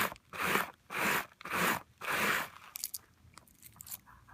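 Rough scouring pad scrubbed back and forth along the grain of a satin-finish stainless steel watch bracelet, about two strokes a second, abrading out scratches. The strokes stop about two and a half seconds in, leaving a few faint clicks.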